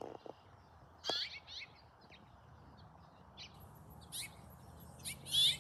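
House finch calls: a series of short, quick chirps, loudest in a pair near the end. A faint steady high hiss starts about halfway through.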